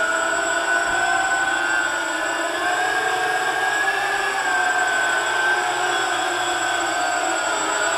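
Multirotor model's electric motors and propellers whining in a hover: several steady tones that drift gently up and down in pitch as the throttle is worked to hold it close.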